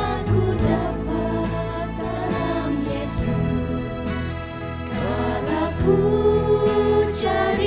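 A small mixed vocal group of four women and a man singing a Malay-language worship song in harmony. The voices are held and gliding, over instrumental accompaniment with a steady beat.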